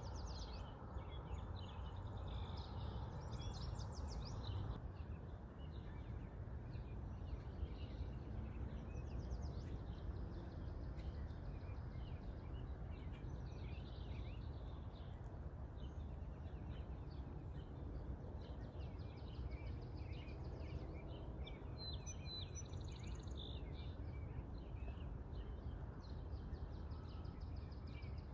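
Many small birds chirping over a steady low background rumble.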